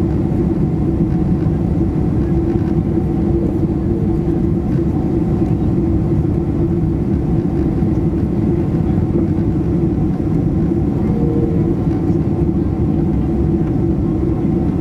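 Steady cabin noise inside a Boeing 767-300ER on approach with flaps extended: an even low hum of engines and airflow with no breaks.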